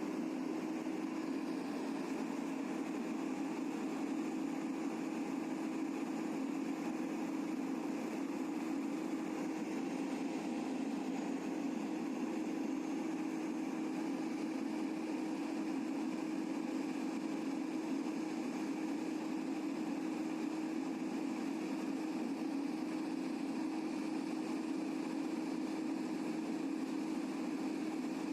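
Pile boring machine's engine running steadily at an even, unchanging pitch.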